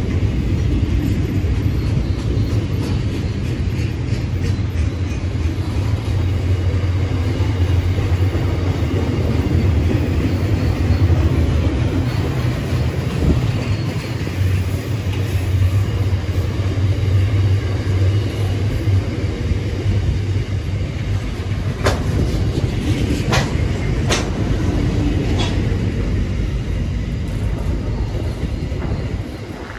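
Container freight train's wagons rolling past on the rails: a steady, heavy rumble of wheels on track. About two-thirds of the way in come a few short, sharp sounds from the wheels.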